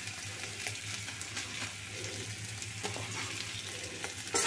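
Boiled potatoes sizzling in hot oil in a metal kadai, with a metal spatula stirring and scraping the pan. The frying and stirring get louder near the end.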